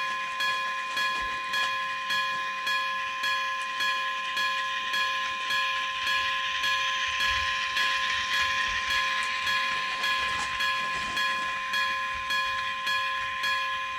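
Railroad crossing warning bell ringing in an even beat of about two strokes a second while a train passes. The train's noise swells to its loudest near the middle and then fades, with occasional low thumps.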